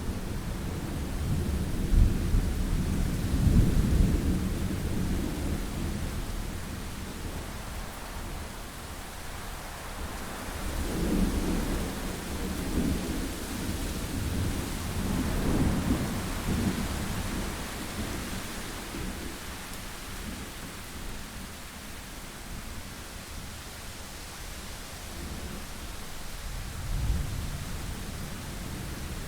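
Thunderstorm: steady rain hissing, with rolls of thunder rumbling over it, the loudest a few seconds in, more rolls through the middle and a short one near the end.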